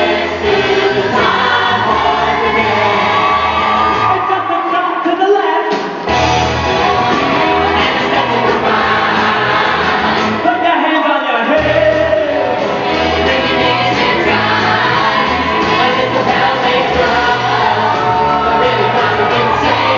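Loud music with many voices singing together over a backing band. The bass drops out twice, briefly, about four seconds and ten seconds in.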